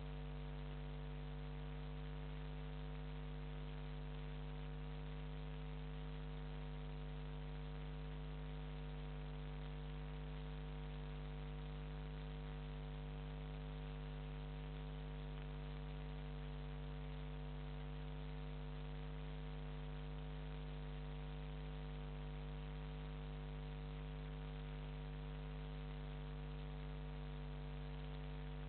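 Steady electrical mains hum with a constant hiss, unchanging throughout; no boat engine stands out from it.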